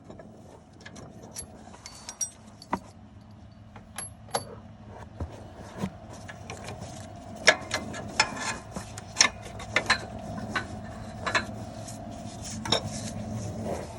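Hand tools clicking and clinking against metal, with ratchet-like clicks, during work on the A/C compressor mounting of a 2006 Honda Civic 1.8. The clicks come irregularly and grow busier about halfway through.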